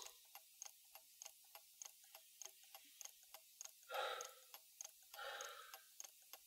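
A clock ticking faintly and evenly, about three ticks a second, with two breaths about four and five seconds in.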